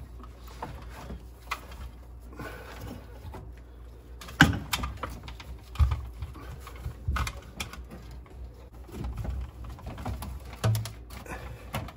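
Handling noise from a plastic bilge pump and its hose being moved about and set down in a boat's bilge: scattered clicks, knocks and rubbing, with one sharp click about four seconds in.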